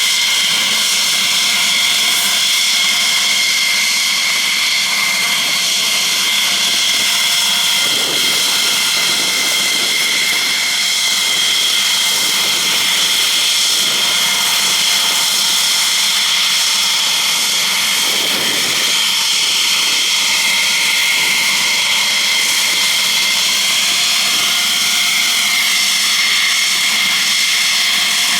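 F-16 fighter jet engines running steadily, a loud continuous jet rush with a high, unchanging whine and no rise or fall in pitch.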